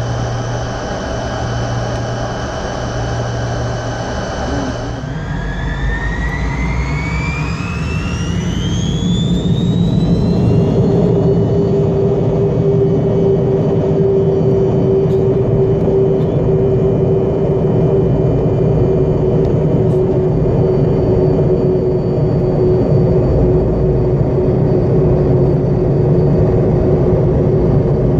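Tu-134's two Soloviev D-30 turbofan engines spooling up to take-off power. About five seconds in, a whine rises steeply in pitch, then settles into a louder, steady roar with a held tone.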